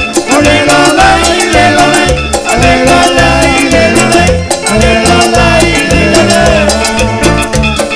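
Peruvian Amazonian cumbia band playing live: an electric guitar melody over timbales and percussion with a steady dance beat.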